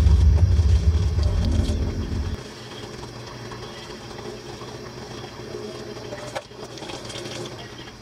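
Kitchen faucet running into a stainless steel sink while a ring is scrubbed with a small brush under the stream. A deep rumble stops abruptly about two seconds in, and a light knock follows about six seconds in.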